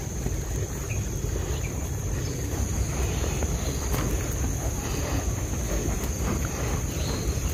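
Low rumble of wind on the microphone, with a steady high-pitched drone of insects above it.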